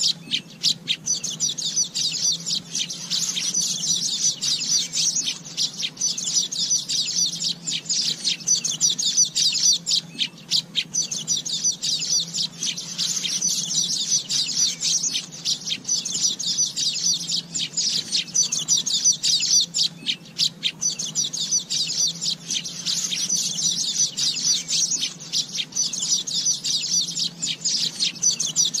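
Asian golden weavers chattering: a dense, continuous stream of high chirps and trills with no break.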